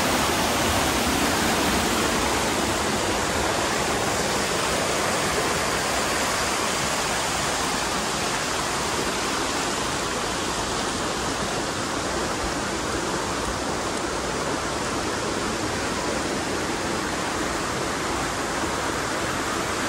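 Steady rush of falling water from a waterfall cascade, a dense even hiss.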